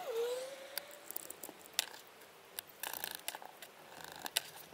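Small clicks and taps of metal parts and screws as a stepper motor mount is assembled by hand, with a screwdriver driving screws into the mounting plate. There is a brief pitched squeak at the start.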